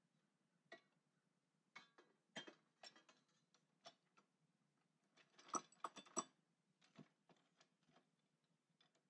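Faint scattered clicks and light knocks of a long metal bar being shifted on a bench and into a chop saw's vise, with a quick run of sharper metal clacks about five and a half seconds in.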